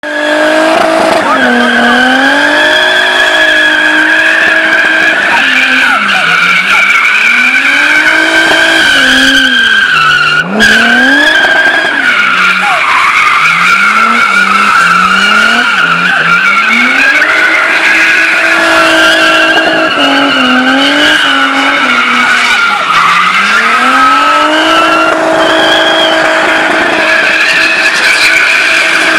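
Twin-turbo Mercedes-Benz W124 300CE with an M103 straight-six, doing burnouts and drifts. The engine revs up and down again and again while the rear tyres squeal without a break, with a single sharp pop about ten seconds in.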